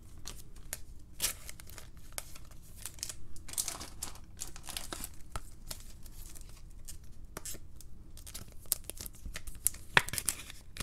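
A trading card being slid into a thin plastic penny sleeve and then into a rigid plastic toploader. Thin plastic crinkles and rustles, with many small clicks and taps, and one louder tap near the end.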